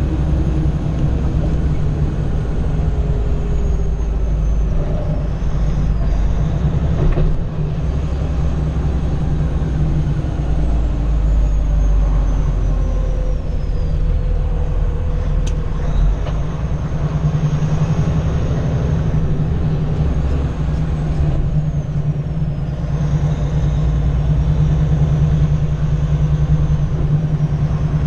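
Cummins ISX 600 hp straight-six diesel of a Kenworth W900L heard from inside the cab, running at road speed with a steady deep drone and tyre and road noise. The engine note drops briefly twice, about seven and twenty-two seconds in, as the driver works the Eaton Fuller 18-speed gearbox.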